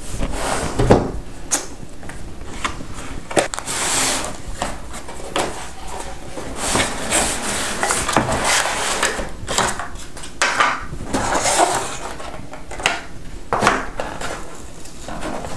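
Cardboard retail packaging being opened and handled: flaps and inner boxes rustling and scraping, with many light knocks and clicks.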